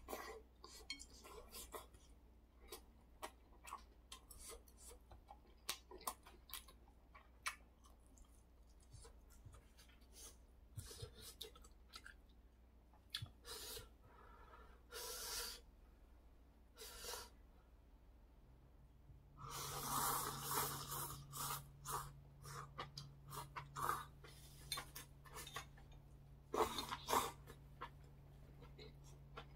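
A person eating spicy noodle soup with chopsticks: small clicks of chopsticks and bowl, chewing, and short slurps of noodles, with a longer, louder stretch of slurping about twenty seconds in. A faint low hum comes in about two-thirds of the way through.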